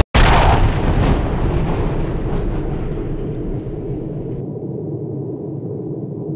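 A loud blast like an explosion sound effect, dying away over a few seconds into a steady low rumble.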